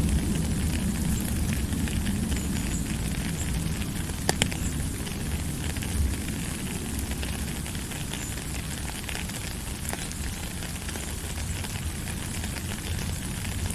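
A steady hiss with a low rumble underneath and a few sharp crackles or pops scattered through it, about four seconds in, about six seconds in and near ten seconds.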